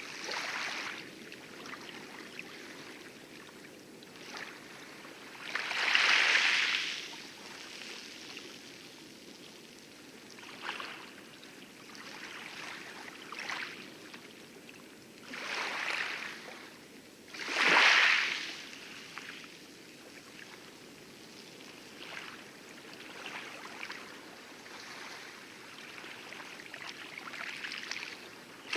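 Light waves lapping and splashing on coral in irregular washes, two of them louder, about six seconds and eighteen seconds in, over a steady low rumble of distant heavy surf.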